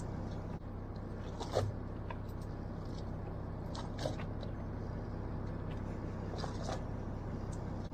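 Steady low hum of a fishing boat's engine, with a few light clicks and scrapes, about one and a half, four and six and a half seconds in.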